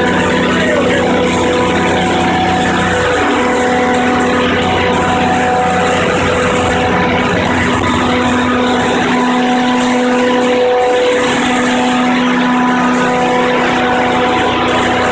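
Biogas-fuelled generator engine running steadily with a loud, even hum. The tone of the hum shifts a little about three seconds in.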